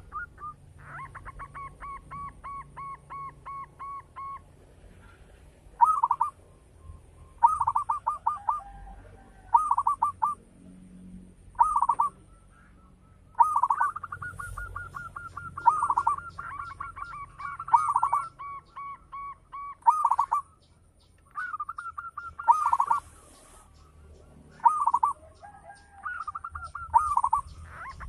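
Zebra dove (perkutut) cooing: repeated phrases of quick staccato coos, a new phrase every two seconds or so. A faint, high, pulsed chirring runs behind them.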